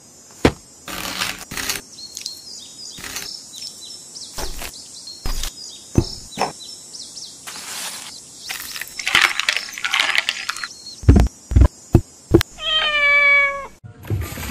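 A cat's paw tapping and scratching at the rind of a whole watermelon in a run of irregular light knocks, with a few heavier thumps. Near the end a cat meows once, for about a second.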